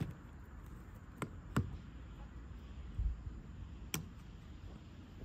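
Three sharp knocks, two close together about a second in and one near the four-second mark, with a soft low thump between them, over a steady low rumble.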